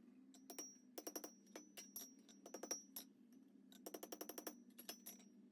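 Light hammer blows on small hot iron over an anvil, punching the rivet hole in a miniature plier half: a series of sharp strikes with a faint metallic ring, coming in irregular groups with a quick run of taps about four seconds in.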